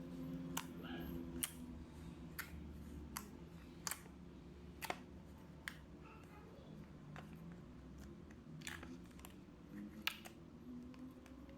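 Slime being squished and pressed by hand, giving small sharp clicks and pops at an uneven pace, roughly one a second.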